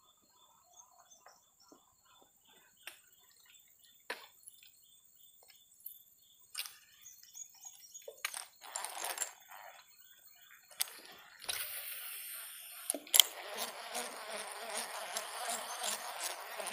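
Insects droning with a faint steady high tone, broken by scattered sharp clicks and knocks. About two-thirds of the way in a loud, even hiss sets in and carries on.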